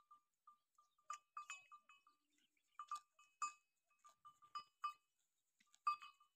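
Horse grazing close by: faint, irregular short crunches as it crops and chews grass, about a dozen of them, many carrying a light ringing click.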